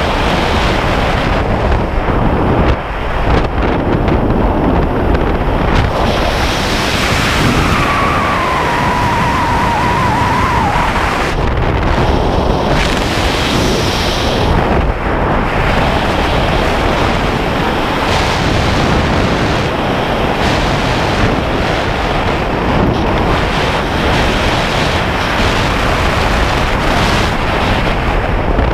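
Wind rushing over the camera microphone during a descent under an open parachute canopy, a steady loud rush. A thin falling tone sounds for a few seconds about eight seconds in.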